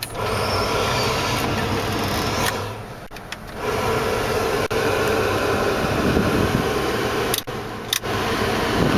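1991 Chevrolet S10's heater and air-conditioning blower fan blowing air through the dash vents. The rush drops away briefly about three seconds in and again near the end as the climate-control sliders are moved, with a few sharp plastic clicks from the sliders.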